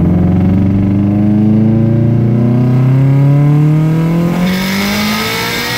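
Car engine accelerating hard, heard from inside the cabin. Its pitch climbs steadily for about four seconds, drops once as it shifts up, and then climbs again.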